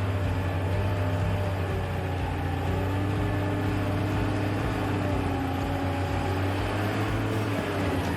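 Engine of a log skidder running steadily under load: a continuous low drone whose pitch drifts slightly.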